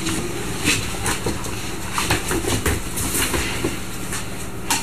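Irregular light clicks and scuffs of puppies moving about and playing, over a steady low hum.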